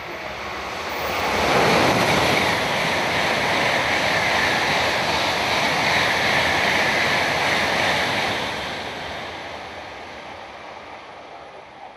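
Shinkansen high-speed train passing through a station without stopping: a rushing noise swells about a second in, holds for about six seconds as the train goes by, then fades away.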